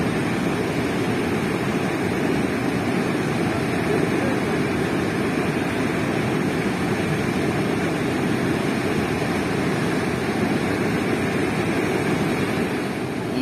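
Steady rushing of fast river water spilling over a weir's sloped concrete apron.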